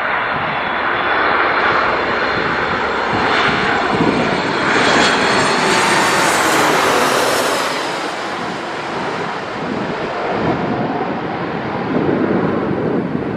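Jet airliner passing by, its engines a loud rushing noise with a high whine that builds to a peak about six seconds in, then falls in pitch and eases off as the aircraft moves away.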